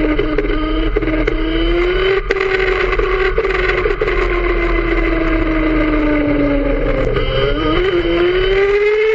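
Go-kart motor running under the onboard camera, one steady tone whose pitch slowly sinks, dips about seven and a half seconds in as the kart slows for a corner, then climbs as it accelerates out. A few short knocks from the kart's chassis are heard along the way.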